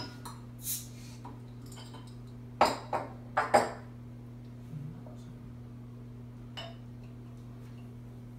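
Imperial stout poured from a glass bottle into a snifter glass. A cluster of four sharp glugs and glassy clinks comes between about two and a half and three and a half seconds in, followed by a quiet steady pour with a few faint ticks.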